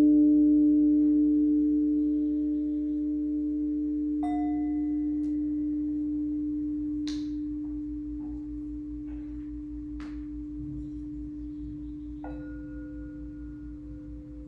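Singing bowl ringing: one low steady tone slowly fading. Softer, higher struck tones join about four seconds in and again near the end, with a couple of faint clicks in between.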